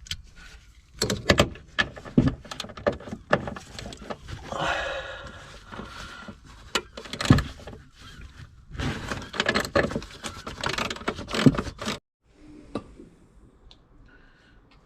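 Irregular clanks, knocks and metallic rattles of hand tools and parts being handled while working on the BMW E46's rear suspension. The sound drops away abruptly about twelve seconds in.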